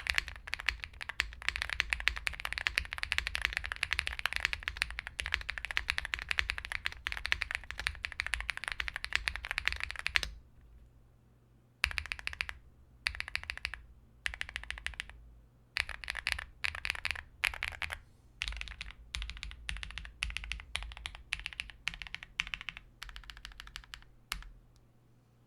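Owlabs Mr. Suit tenkeyless mechanical keyboard with Zaku linear switches and PE foam being typed on. It is typed on fast and without a break for about ten seconds, then in short bursts with brief pauses, stopping just before the end. The sound is marbly and full.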